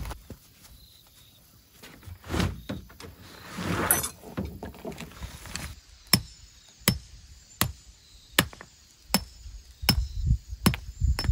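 A steady run of sharp knocks, about eight strikes each under a second apart, starting about halfway through, after a few softer thuds and rustles.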